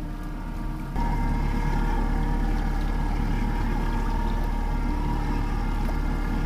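Boat's outboard motor running steadily while trolling, a constant drone that steps up in level about a second in.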